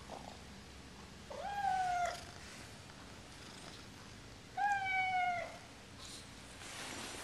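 A domestic cat meowing twice, each meow just under a second long and falling slightly in pitch at its end.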